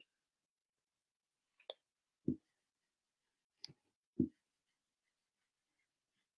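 Two soft clicks, each followed about half a second later by a dull thump, in an otherwise quiet room: a dry-erase marker and whiteboard easel being handled while writing on the board.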